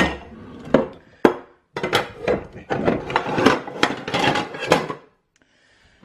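Pots and pans clattering as they are handled in a kitchen drawer: a sharp click, two single knocks, then a quick run of clanks and knocks that stops about five seconds in.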